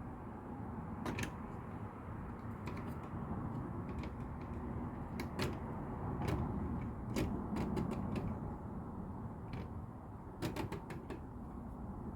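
LEGO plastic pieces clicking and tapping as they are handled and fitted into a build: scattered light clicks at irregular intervals over a steady low background noise.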